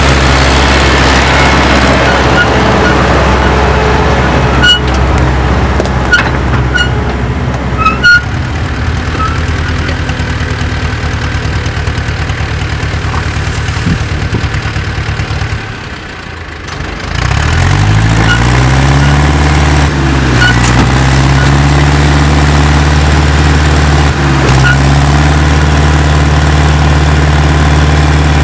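Ursus tractor diesel engine running steadily, with a few sharp clanks, then revving hard under heavy load as it pulls a loaded tipper trailer: after a brief dip about sixteen seconds in, the engine speed climbs, wavers, then holds high.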